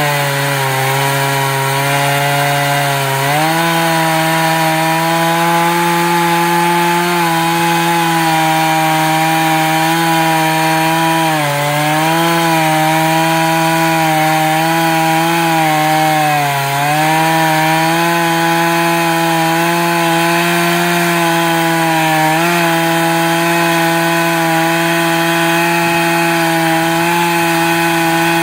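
A sawmill running steadily, with a strong humming tone. Its pitch sags and comes back up several times, at about 3, 11, 16 and 22 seconds in.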